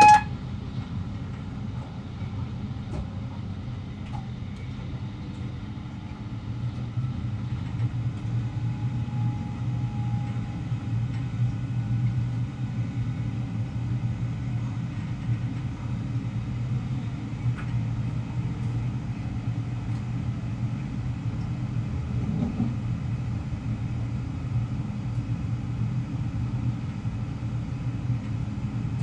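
Class 350 Desiro electric multiple unit heard from the driver's cab while running, a steady low rumble of wheels and running gear that grows a little louder after about six seconds. A short, loud beep sounds right at the start.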